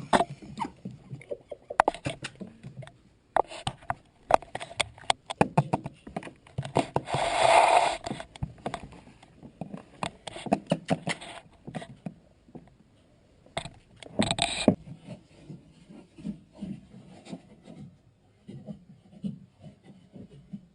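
Yorkshire terrier puppy playing: an irregular run of scratching, clicks and scuffles, with a longer noisy burst about seven seconds in and a shorter one near fourteen seconds.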